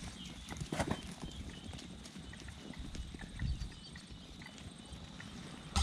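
A mob of sheep moving on foot, their hooves clattering in quick, irregular steps, with a brief louder knock a little under a second in.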